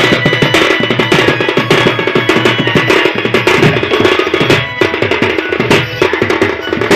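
Live Sambalpuri danda folk dance music: fast, dense drumming with a steady held melody over it, and a brief break in the beat about two-thirds of the way through.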